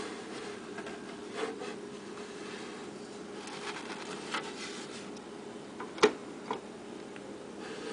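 Faint rubbing and scuffing handling noise, with a sharp tap about six seconds in and a smaller one half a second later, over a steady low hum.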